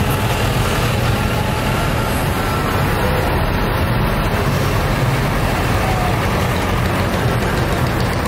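Diesel farm tractors, among them a Claas and a Massey Ferguson, running as they drive slowly past one after another, with a steady low engine hum.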